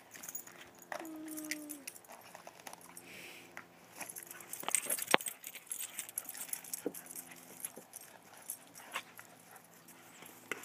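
A Doberman chewing and mouthing a torn basketball: crackling and clicking of the rubber between its teeth, densest about five seconds in. About a second in there is a short squeal that falls in pitch.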